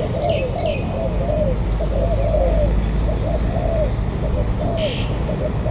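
Spotted doves cooing: a steady run of repeated low arched coos, about two a second, with a couple of short high chirps from a smaller bird over them.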